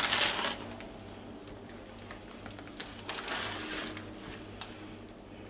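Plastic bag of grated cheese crinkling as it is handled and shaken over a dish: a burst at the start and another about three seconds in, with a short click soon after.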